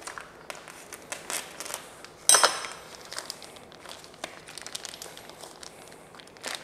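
Vacuum-sealed plastic steak packaging crinkling as it is cut open and handled, with one loud, sharp crackle of the plastic a little over two seconds in.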